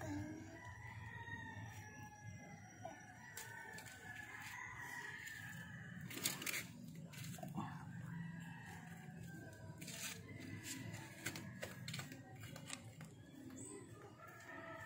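Roosters crowing repeatedly in the background, long drawn-out calls overlapping one another. Scattered clicks and knocks of metal parts being handled, the loudest about six seconds in.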